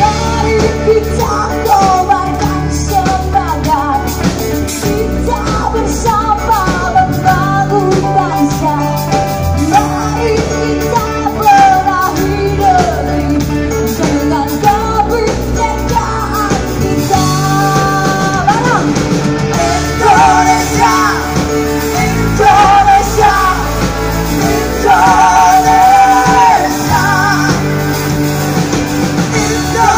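A live rock band plays a song while a woman sings lead, backed by electric guitars, drums and keyboard.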